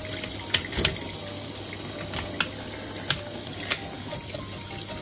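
A kitchen tap runs steadily into a stainless-steel sink. Over it come a handful of sharp snips from kitchen scissors cutting the fins off a rockfish.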